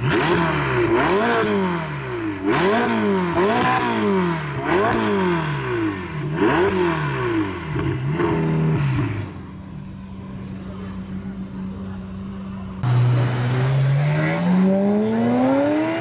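Ferrari V8 supercar engine blipped repeatedly, about once a second, each rev climbing fast and falling back. It settles to a steady idle, then about three-quarters of the way in gets louder and pulls away with a steadily rising note.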